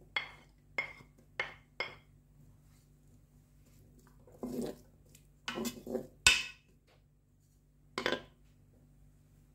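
Kitchen utensils clinking: four quick taps as chopped vegetables are knocked off a ceramic plate into a Moulinex Cookeo's pot, then a wooden spoon stirring and clacking against the pot, with a sharp knock about six seconds in and another near the end. A faint steady hum runs underneath.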